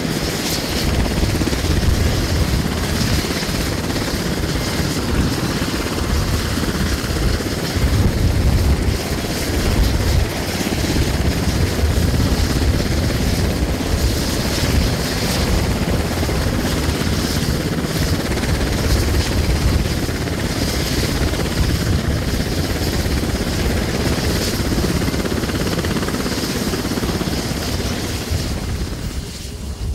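Sikorsky CH-148 Cyclone helicopter running on the ground, its twin turboshaft engines giving a steady high whine over the low beating of the turning rotor blades. The sound fades down near the end.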